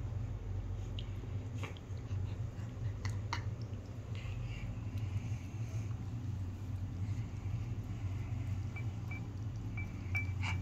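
A munchkin cat chewing and licking a wet jelly snack: faint, scattered small smacks and clicks over a steady low hum.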